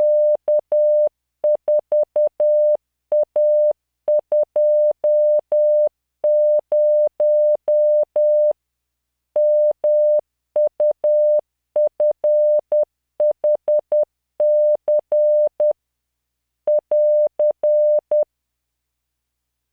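Morse code practice tone from CW training software: a single 600 Hz beep keyed into dots and dashes at 10 words per minute, sending random five-character groups with short gaps between characters and longer gaps between groups. It stops about 18 seconds in.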